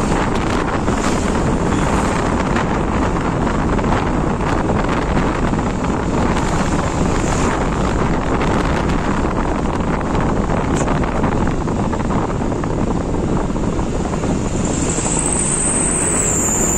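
Wind rushing steadily over the microphone on a moving motorbike, mixed with the running of the bike's engine and the traffic around it. A thin, high whistle sounds briefly near the end.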